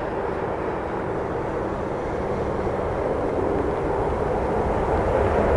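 Jet noise from a four-engine Boeing 747-8 freighter on a wet runway: a steady, deep rumble that grows louder toward the end.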